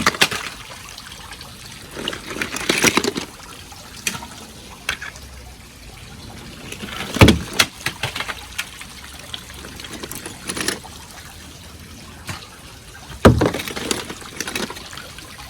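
Sprinkler water running steadily into a backyard pool, with sharp clatters and splashes every few seconds as toy cars land in the water. The loudest are about 7 and 13 seconds in.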